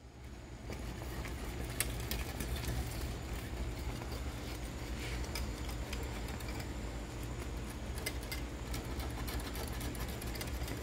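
Thick sausage gravy boiling in a stainless steel pan, with scattered short pops of bursting bubbles over a steady low hum.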